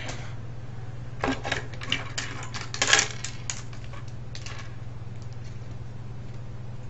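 Parts and tools from a half-dismantled cassette recorder being handled and set down on a workbench: a few short clinks and clatters, the loudest about three seconds in, over a steady low hum.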